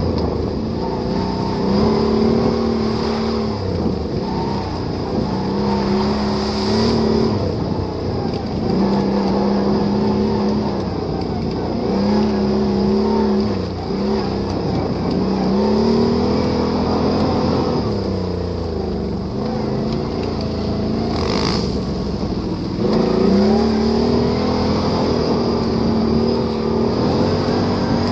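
Can-Am Renegade ATV engine revving up and down over and over while riding, its pitch climbing and dropping every two to three seconds, with a steady high whine underneath.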